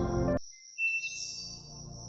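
A loud low sound cuts off abruptly less than half a second in, leaving soft ambient music with bird chirps.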